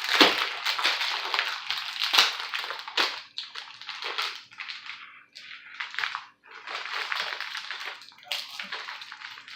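Candy packaging being torn open and crinkled by hand, an irregular run of crackles with short pauses near the middle.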